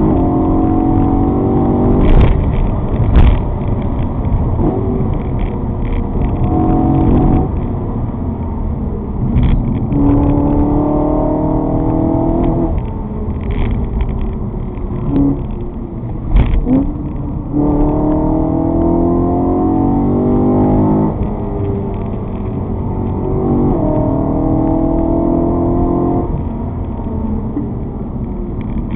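A vehicle engine heard onboard, pulling up through the gears: its pitch climbs for a few seconds, drops at each shift and climbs again, several times over. A few short knocks stand out, the loudest two near the start and one about halfway.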